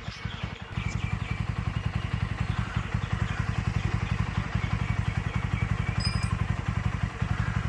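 TVS Apache RTR 200 4V single-cylinder four-stroke engine idling with an even, steady beat. The engine has been freshly rebuilt with a new cylinder kit, valves, rockers and timing-chain tensioner, and the earlier engine noise is gone.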